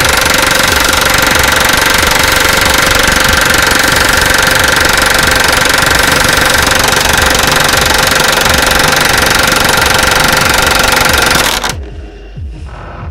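Loud, steady machine noise with a constant high whine, cutting off abruptly near the end.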